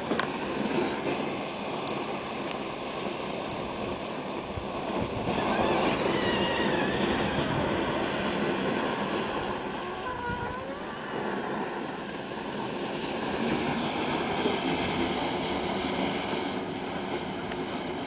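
A 36 V 10 Ah lithium battery pack burning in thermal runaway: a steady rushing noise of flame jetting from the pack. A few brief wavering whistle-like tones come and go near the middle.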